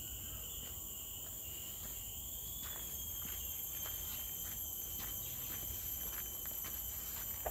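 Footsteps on a dirt trail strewn with dry leaves, about two a second, over a steady high-pitched drone of forest insects.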